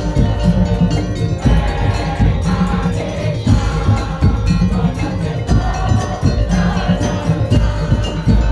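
Madurese ul-daul (tong-tong) percussion ensemble playing: fast, dense strikes on bamboo and wooden slit drums and metal gongs and bells over a repeating low drum pattern.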